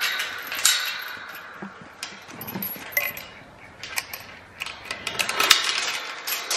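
Steel chain clinking and rattling against a metal tube gate as it is wrapped around a wooden post and clipped shut with a snap hook: a run of irregular sharp metallic clicks and jingles, busiest near the end.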